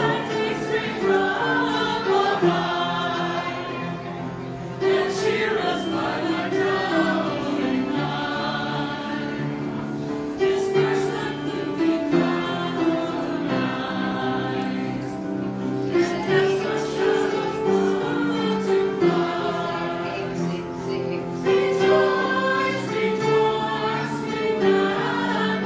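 A small mixed group of carolers, men and women, singing a Christmas carol together.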